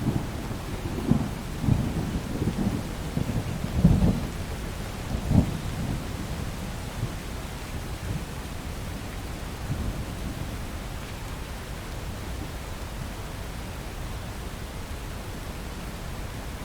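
Thunder rolling over steady rain, with several low swells in the first six seconds, the loudest about four seconds in. The thunder then fades, leaving the even hiss of rain.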